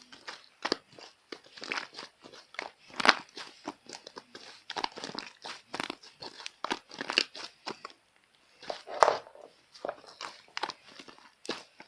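Slime mixed with shaving foam being squeezed and kneaded by hand, making a quick, irregular run of small wet clicks and pops of trapped air. There is a short pause about eight seconds in.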